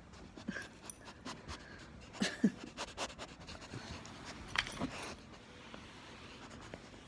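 Pit bull-type dog's noisy, snoring breaths and snuffles: a few short ones about two seconds apart, with small clicks in between.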